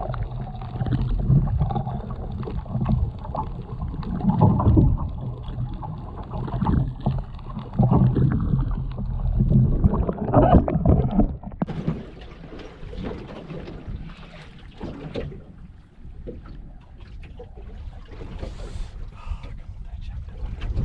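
Muffled rushing water and a steady low engine drone, heard through a camera held underwater. About halfway through the sound turns clearer, with splashing, water crackle and wind as the camera comes up through the surface.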